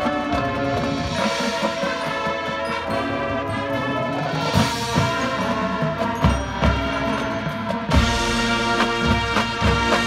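High school marching band playing its field show: the brass holds full, sustained chords, and from about six seconds in heavy drum hits come in beneath them, with a strong accent a couple of seconds later.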